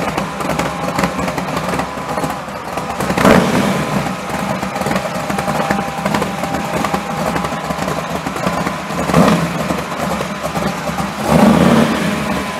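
1967 Ford Mustang Shelby GT500 'Eleanor' V8 running and rumbling at low speed as the car rolls off. Short bursts of throttle make it louder about three seconds in, again around nine seconds, and near the end.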